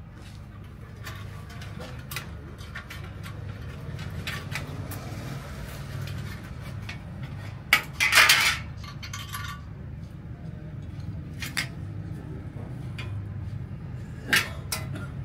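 Metal tools and bicycle parts clinking and knocking during repair work, with scattered light clicks and a louder metallic clatter about eight seconds in and again near the end, over a steady low hum.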